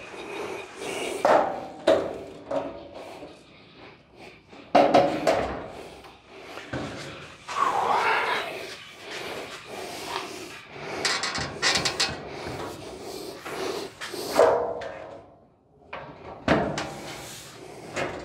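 Irregular knocks, clunks and scrapes of a steel pickup bed's panels being shifted and fitted by hand, with a loud knock about fourteen seconds in.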